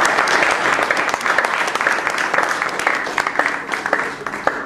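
Audience applauding, a dense patter of clapping that thins out and fades away near the end.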